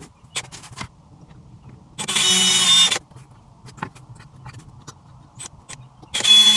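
Electric drill run in two short bursts of about a second each, a steady motor whine, with small clicks and knocks of handling between them.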